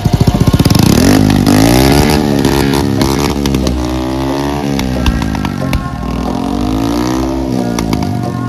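Air-cooled motorcycle engine of a homemade jeep-style cart, revved from idle with the throttle opened and closed about three times, its pitch rising and falling each time.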